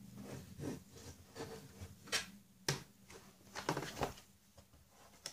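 Plastic snap clips of an ASUS Transformer Book T100 keyboard dock's base cover popping loose as a plastic card is worked along the seam, with scraping and handling of the plastic case. A few sharp clicks come between about two and four seconds in.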